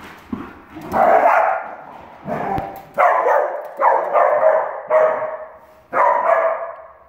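Dachshunds barking during rough play: about six sharp barks, roughly one a second.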